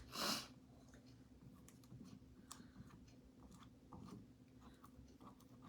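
Near silence with faint scattered small clicks and light taps from handling craft tools while chalk paste is worked onto a stencil, and a short hiss just after the start.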